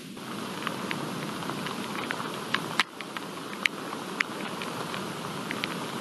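Rain starting in a thunderstorm: big scattered raindrops striking close by with sharp, irregular ticks over a steady hiss of falling rain.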